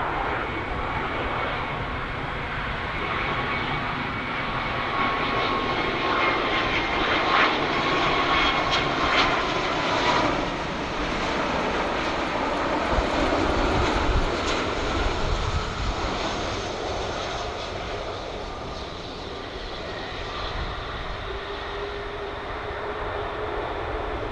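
Boeing 777-200ER airliner on landing approach, its two Rolls-Royce Trent 892 turbofans giving a steady jet rumble with a whine that drops slightly in pitch. It is loudest around the middle, as the aircraft passes, then fades.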